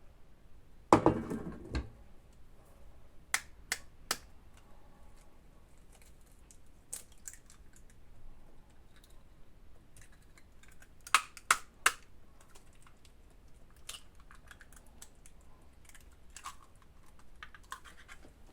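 Eggs being tapped against the rim of a bowl to crack them: quick groups of three sharp taps, twice, after a louder clunk about a second in.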